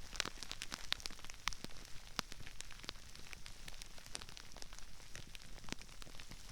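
Crispy rice crackling and popping: a dense, irregular patter of small sharp clicks and snaps, some louder than others, spread all around a binaural microphone.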